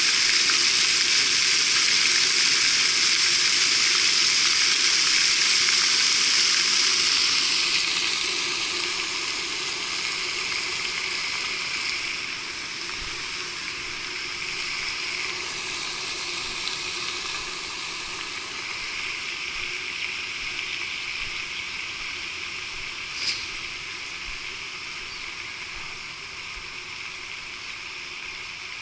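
Pond fountain spray falling onto the water surface, a steady splashing hiss that grows gradually fainter after about seven seconds. One brief click late on.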